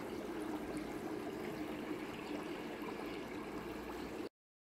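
Water running and trickling steadily through a koi pond's vortex and media filter tanks, cutting off suddenly near the end.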